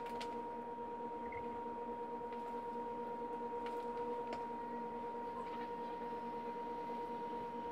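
A steady hum with a constant whine running under it, and a few faint taps and squeaks of a dry-erase marker writing on a whiteboard.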